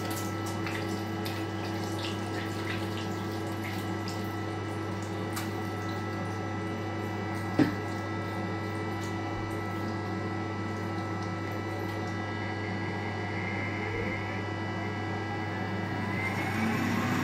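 Water running from a train toilet's sensor-operated tap onto a hand and into the basin, over a steady hum, with one sharp knock about halfway through. Near the end a whine rises as the hand dryer in the same unit starts up.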